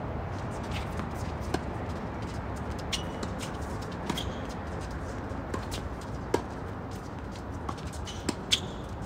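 Tennis balls popping off racket strings and bouncing on a hard court during a rally: sharp pops every second or so, the loudest about six seconds in, over a steady low background rumble.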